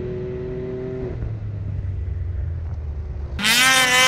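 Snowmobile engine running with a low, steady drone. About three and a half seconds in, a much louder, high-pitched snowmobile engine cuts in, revving up and down.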